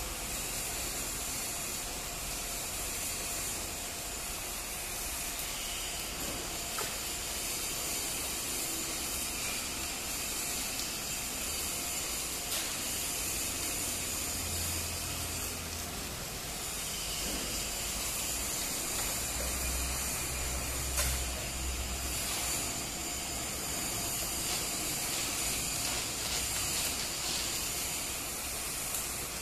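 Electric arc welding: the arc burning steadily, an unbroken hiss with a few small crackles.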